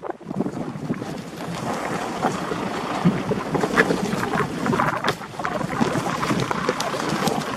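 Loose stones on a rough dirt track crunching and rattling in a dense, steady crackle, with wind noise on the microphone.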